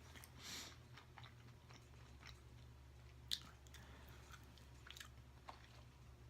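Faint close-up chewing, with soft wet mouth smacks and clicks while eating fast food; one sharper click a little after three seconds in.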